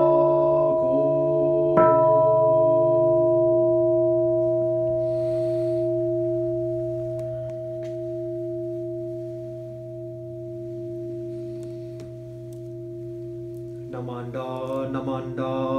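Large bronze Buddhist bowl bell (kin) struck once about two seconds in, its tones ringing on and slowly fading. Near the end a man's voice begins chanting.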